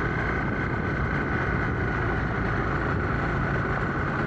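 An engine running steadily at an even speed, with a steady high tone above its low hum.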